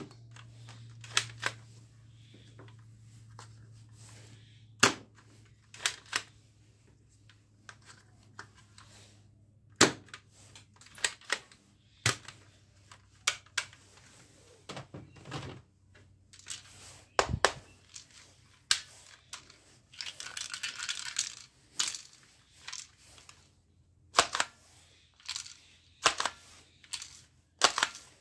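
Sharp plastic clicks and clacks from toy blasters being handled and worked, their mechanisms snapping at irregular intervals, with a short rattling stretch about twenty seconds in.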